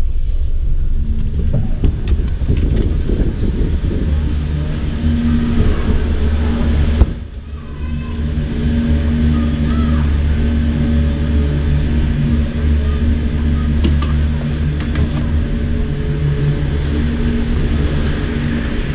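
Chairlift machinery running: a steady low hum with a few pitched tones, under rumbling noise in the first seconds. The sound dips briefly about seven seconds in.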